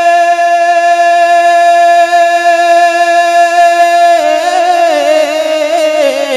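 A man singing a naat, holding one long steady note, then breaking into a wavering, ornamented run about four seconds in.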